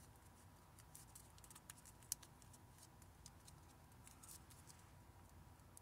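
Faint, sparse crinkles and clicks of paper being folded and creased by hand, with one sharper tick about two seconds in.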